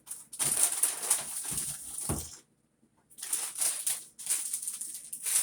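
Plastic snack bag crinkling as it is handled, in three bursts of rustling with short pauses between them.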